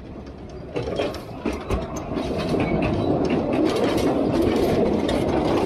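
Narrow-gauge train carriages rattling and clattering on the track. The clatter starts about a second in and grows louder and denser.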